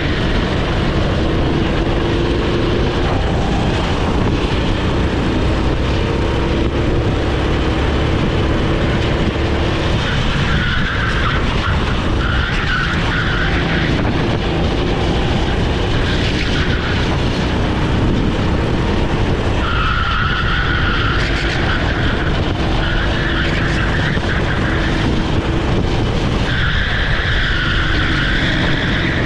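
Onboard sound of a rental kart's Honda GX390 single-cylinder four-stroke engine running at racing speed, with heavy wind rumble on the microphone. Several times, for a second or two, the tyres squeal high through corners.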